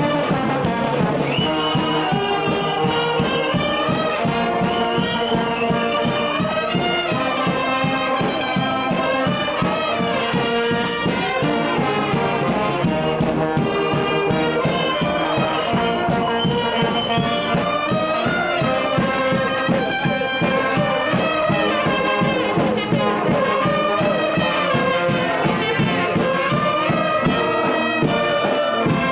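Banda brass band playing a lively tune, trombones and other brass over a steady drum beat.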